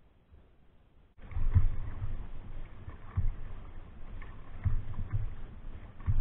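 Near silence for about a second, then an open canoe under way on rippled water starts up suddenly: water lapping and splashing against the hull, with repeated low thuds.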